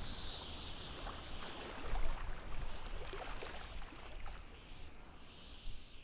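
Outdoor ambience on the water: wind rumbling on the microphone with a lapping, gurgling water hiss and small ticks, growing fainter near the end.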